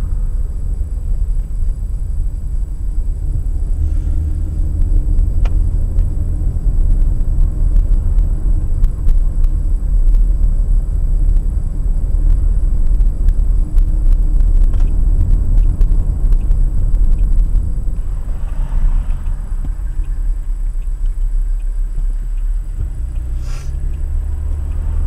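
Steady low rumble of a car driving along a street, engine and tyre noise heard from inside the car.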